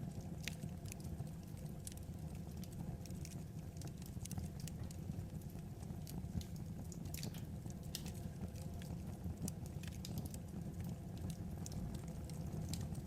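Wood fire crackling: irregular sharp pops and snaps, several a second, over a steady low rumble of the burning.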